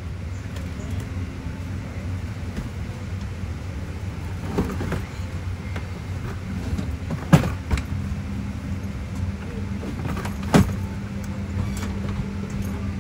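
Steady low hum inside a Boeing 777-200 airliner cabin, with two sharp knocks about halfway through and again about three seconds later.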